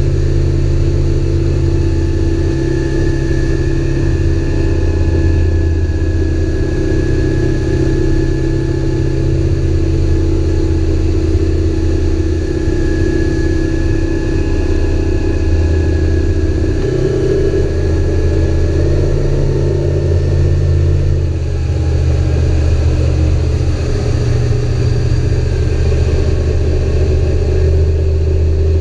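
Mariner four-stroke outboard motor running steadily at planing speed on a test run, with the rush of the boat's wake beneath it. The engine note shifts slightly in pitch about two-thirds of the way through.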